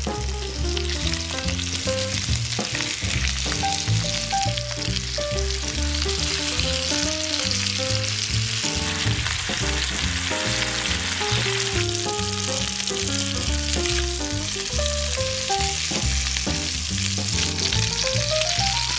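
Chicken legs sizzling in hot vegetable oil in a frying pan, a steady sizzle throughout, under background music with a bass line and melody notes; a rising run of notes near the end.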